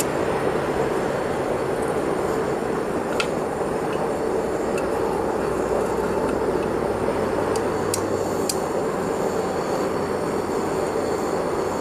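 Steady noise of a metal-melting furnace's burner running, with a few light clinks as steel tongs lift a freshly cast medallion from its graphite mold and set it down.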